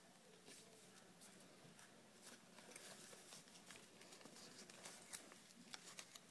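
Faint rustling and soft crinkles of a sheet of paper being folded and creased by hand, with scattered light ticks as the folds are pressed down.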